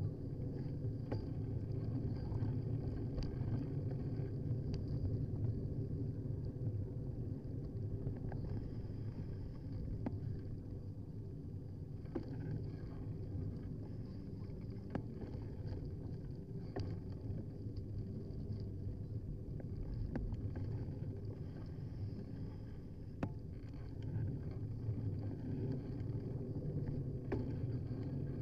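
Carrera CX bicycle riding on the road, heard through a handlebar-mounted camera: a steady low rumble of tyres and frame vibration, with scattered small clicks and knocks from bumps in the surface.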